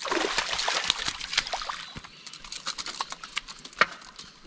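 Water splashing and trickling with many sharp little clicks and crackles, cut off abruptly at the end.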